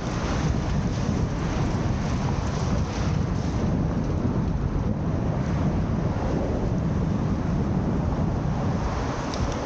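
Steady, rumbling wind noise buffeting the microphone, with no distinct events in it.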